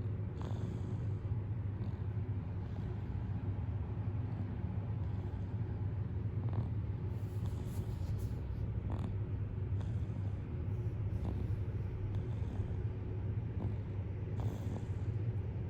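Six-month-old baby snoring in sleep: a steady low rattle with a few faint clicks.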